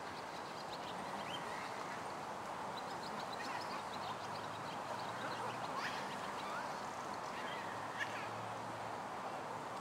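Outdoor ambience: small birds chirping, with short scattered calls, over a steady background hiss.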